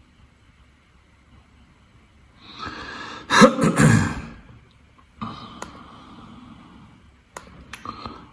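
A person's loud breathy vocal noise about three seconds in, then softer breath-like noise. Two sharp clicks of a computer mouse come near the end.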